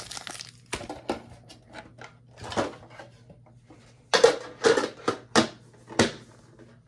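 Foil booster packs being handled and shuffled: scattered crinkles and light knocks, with a louder cluster of them about four to six seconds in.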